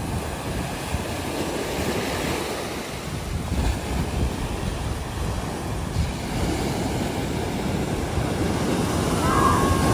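Ocean surf breaking and washing up a sandy beach: a continuous rush of water that grows slightly louder toward the end. A thin whistling tone starts near the end.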